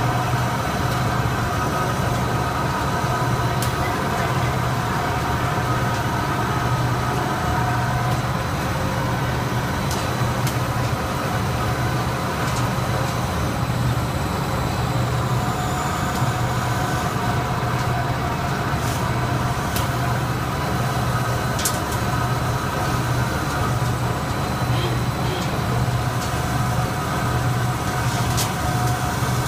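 Textile stenter frame running steadily, with its drive motors and fans making a constant mechanical hum over a low drone. A few faint clicks come through now and then.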